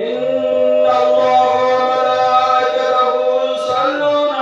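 A man's voice chanting one long held note over the microphone and loudspeaker. It starts abruptly and holds a steady pitch throughout.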